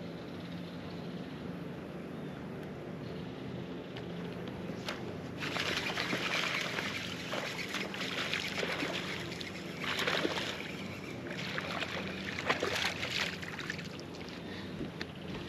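Hooked bass thrashing and splashing at the surface on the line. There are bouts of splashing about five, ten and twelve seconds in.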